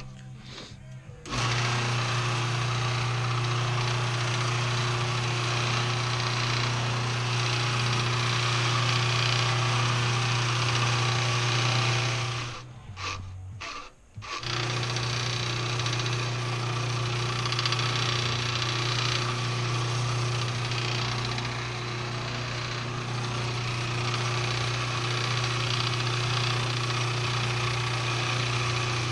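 Delta wood lathe running with a steady motor hum and a hiss, a small wooden file handle spinning on it as hands work it. The sound starts about a second in and drops out briefly about halfway before running again.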